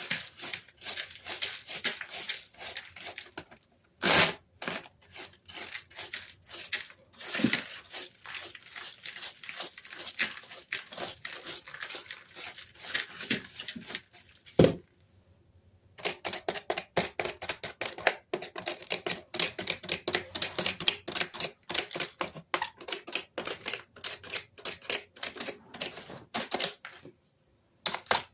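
Dell keyboard being cleaned: rapid scratchy rubbing strokes against the plastic keys, with many small clicks. A sharp click about halfway through is followed by a pause of about a second before the rubbing starts again.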